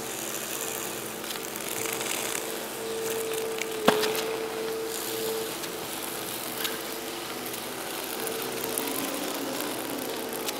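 Steady mechanical running noise with a low hum, and a single sharp knock about four seconds in.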